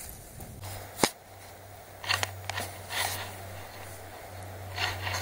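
Handling noise from an action camera in its case as it is turned round and set up: a sharp click about a second in, then scattered crunching clicks, over a low steady hum.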